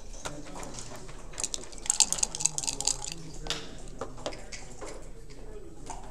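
Backgammon dice rattled in a cup and rolled out onto the board: a quick run of sharp clicks starting about a second and a half in, loudest around two seconds, with one more click shortly after.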